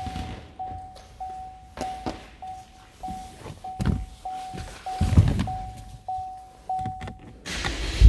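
2018 Chevrolet Camaro's interior warning chime dinging steadily, about once every 0.6 s, until it stops shortly before the end. Knocks and a heavier thump about five seconds in come from someone moving about the driver's seat.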